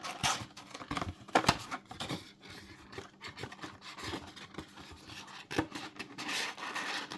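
Hands opening a sealed trading-card booster box: irregular scratching, rubbing and clicking of plastic wrap and cardboard, with a longer rustle about six seconds in.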